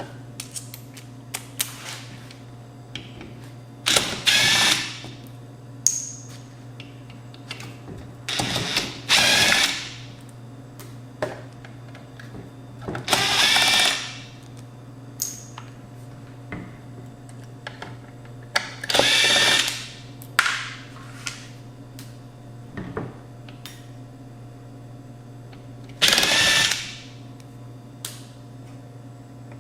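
Cordless power driver with a Phillips bit backing out screws from a car amplifier's casing, in about six short runs of about a second each, a few seconds apart. Small clicks and taps of the screws and parts being handled come between the runs, over a steady low hum.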